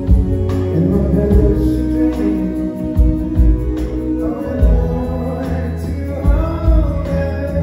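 Live rock band playing, with bass guitar, drums on a steady beat, and singing that comes in mostly in the second half.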